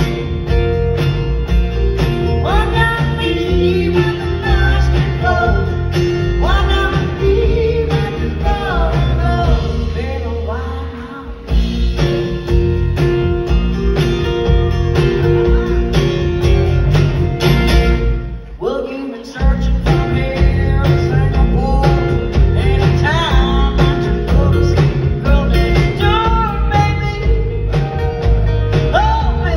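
Live band music: lead vocals over electric and acoustic guitars, upright bass and drums. The band drops out for a moment twice, about eleven and nineteen seconds in.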